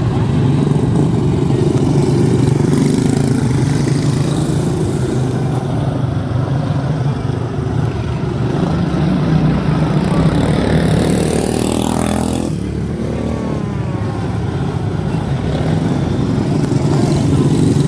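Several quarter midget race car engines, single-cylinder Briggs & Stratton Animal motors, running together as a steady drone. One engine's pitch sweeps up briefly about twelve seconds in.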